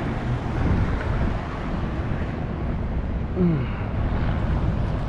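Wind buffeting the action-camera microphone: a steady low rumble, with a brief falling squeak about three and a half seconds in.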